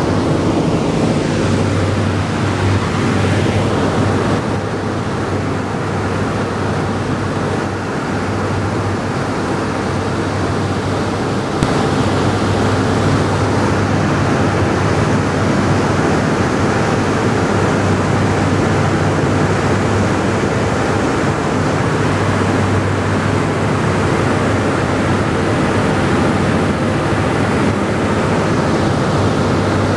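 Boeing B-17G's four Wright R-1820 Cyclone radial engines droning steadily in cruise flight, heard from inside the fuselage along with rushing slipstream wind. The noise gets a little louder about a third of the way through.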